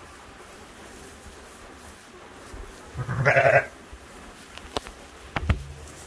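A sheep bleats once, loudly and briefly, about three seconds in. Two sharp knocks follow near the end.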